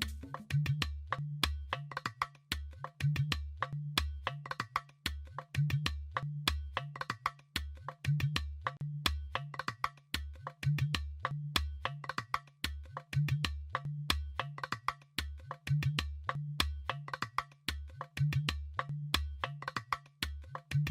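Background music with a steady beat: crisp wood-block-like clicks over a pulsing bass line.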